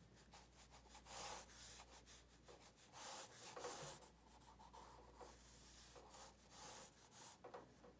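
Graphite pencil scratching across drawing paper in several long sweeping strokes, faint, with short pauses between them.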